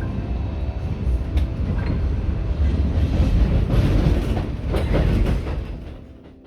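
A train running on rails, the rumble building up and then fading out near the end.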